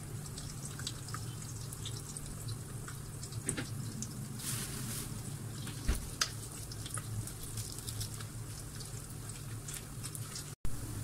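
Sliced onions and green chilli frying in oil in a stainless steel pot, with scattered small crackles and pops over a steady low hum.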